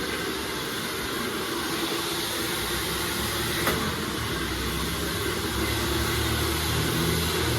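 Handheld hair blow dryer running: a steady rush of air with a motor hum that grows louder about four seconds in.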